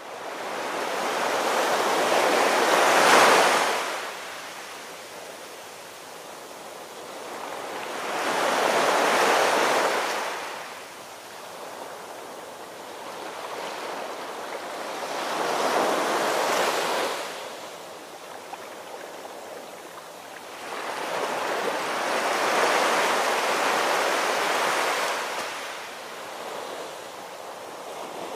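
Ocean waves breaking and washing in: four slow swells that rise and fall about every six to seven seconds, with another building near the end.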